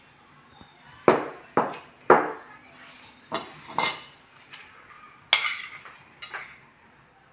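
A metal spoon clinking against dishes, about seven sharp knocks spaced unevenly, as chicken pieces are spooned out of a bowl onto a plate.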